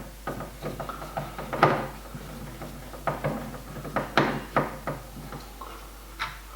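Scattered clicks and knocks of tools and metal parts as the screws of a fridge door hinge bracket are undone, the loudest knock about a second and a half in.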